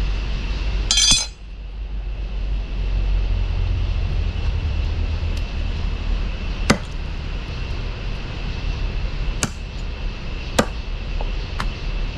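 Knife chopping chicken pieces on a wooden log chopping block: about five sharp chops spaced a second or more apart, the first, about a second in, with a bright metallic clink. A steady low rumble runs underneath.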